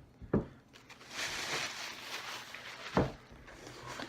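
Packaging rustling while items from a mailed box are handled, with two dull thumps on the table, the second and louder one about three seconds in.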